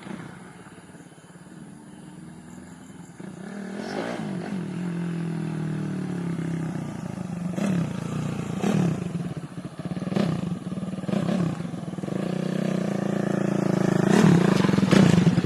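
Suzuki Raider 150 carburetted motorcycle engine being ridden on a test ride. Its note rises and falls with the throttle, faint at first and growing steadily louder toward the end as the bike comes back near.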